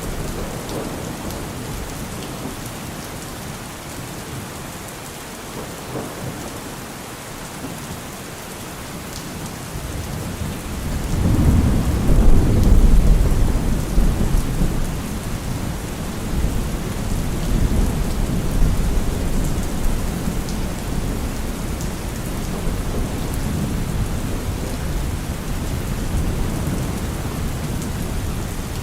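Steady rain falling, with a long roll of thunder that swells about ten seconds in, is loudest a few seconds later, then slowly fades to a low rumble under the rain.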